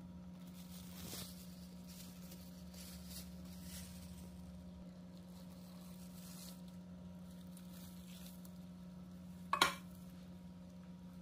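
Faint handling sounds as an aluminium cake tin is lifted off an upturned pineapple upside-down cake, over a steady low hum. Near the end comes one short sharp clatter, the loudest sound.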